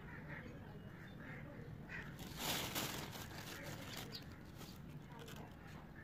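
Birds calling on and off in the background, short repeated calls, with a brief louder burst of noise between two and three seconds in.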